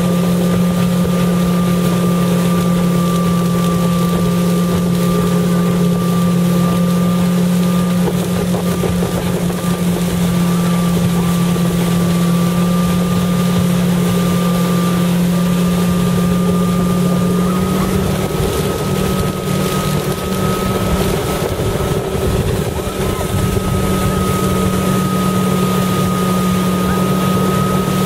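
Towing motorboat's engine running steadily at speed, its note rising slightly about two-thirds of the way through, with wind buffeting the microphone.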